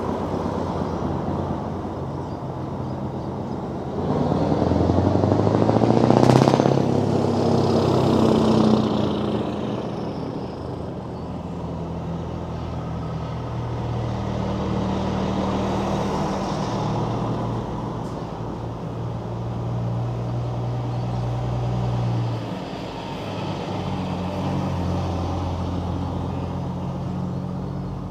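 Heavy trucks' diesel engines passing slowly one after another, their steady engine notes shifting as each truck comes by. A short, sharp sound about six seconds in is the loudest moment. A bonneted truck with tall twin stacks passes working hard under throttle.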